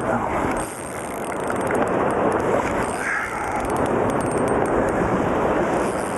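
Steady wind buffeting the microphone over the wash of waves and water around the boat.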